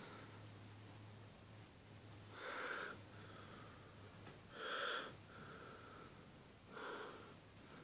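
Three short breathy huffs, about two seconds apart.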